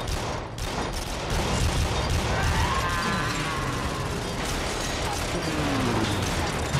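Film battle sound: rapid anti-aircraft gunfire and mechanical clatter over a dense, continuous din of combat. A man's brief shout rises out of it about two and a half seconds in.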